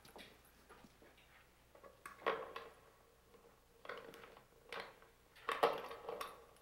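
Metal door hardware on a wooden plank door clinking and clunking as it is worked by hand: a few separate knocks about a second apart, the loudest near the end.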